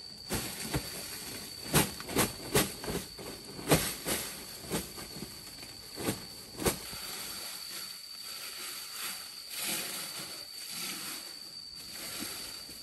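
Cookware knocking and clattering about a dozen times, then a hiss of food sizzling.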